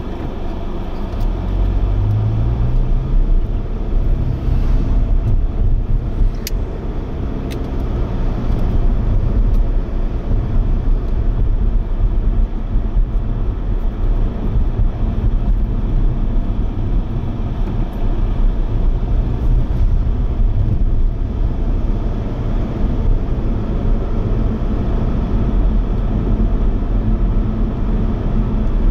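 Road vehicle, most likely a car, driving: a steady low engine and road rumble whose engine note rises about a second or two in. Two short clicks come around six and seven seconds in.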